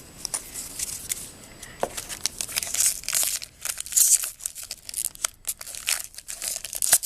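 Foil trading-card pack wrapper being torn open and crinkled by hand: a run of irregular, crackly tearing and crinkling.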